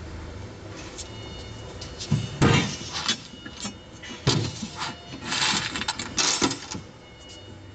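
A steel angle bar knocking and scraping against the flanges of bolted tank panels as it is laid in and slid into place along the joint: several sharp clanks and short scrapes. A steady low hum runs underneath.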